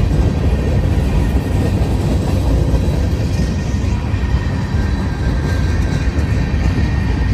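Union Pacific manifest freight train's gondola cars rolling past close by: a loud, steady rumble of steel wheels on the rails, with faint high tones above it.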